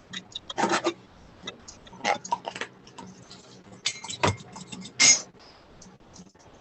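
Irregular small clicks and knocks of kitchen items being handled, with a few brief louder rattles or shakes, as seasoning goes into an egg-and-milk mixture in a cup.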